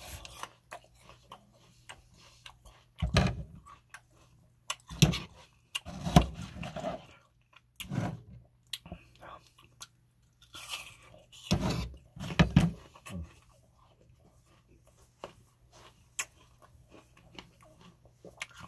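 Close-miked chewing and wet mouth sounds of a person eating, with loud bites and smacks coming in separate bursts and quieter crackly chewing between them, over a faint steady low hum.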